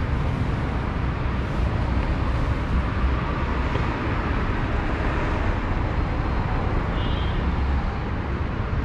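Steady street traffic and city background noise with a deep rumble, and a short high-pitched tone about seven seconds in.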